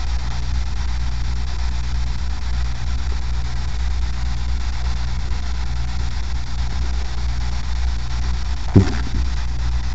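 Steady low hum with a constant hiss over it. A single short knock sounds about nine seconds in.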